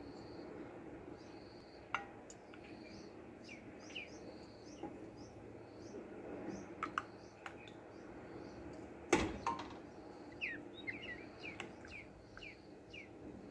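Small birds chirping in the background, with many short repeated notes, over a faint steady hum. A single sharp knock about nine seconds in and a few lighter clicks.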